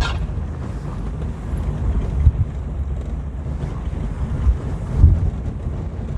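Inside a small manual-transmission car driving slowly on a rough, bumpy street: steady low engine and road rumble, with a few dull thuds from the car jolting over the uneven surface about two, four and a half and five seconds in.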